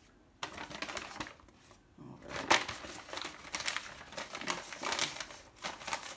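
Thin plastic packaging crinkling and crackling as it is handled, in irregular bursts with a short pause near two seconds.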